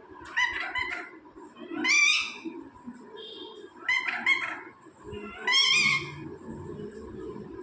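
A parrot calls four times in short, harsh squawks, each under a second long, about every one and a half to two seconds.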